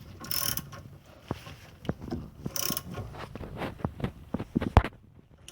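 Ratchet wrench tightening a bolt on a car's rear brake caliper: two short ratcheting strokes, with sharp metal clicks and knocks between and after them, the loudest knock about a second before the end.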